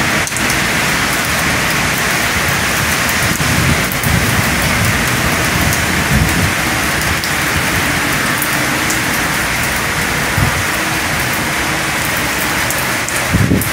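Heavy rain pouring down in a thunderstorm, a dense steady hiss, with a few sharp ticks of drops striking close by. Low rumbles swell now and then, around the middle and near the end.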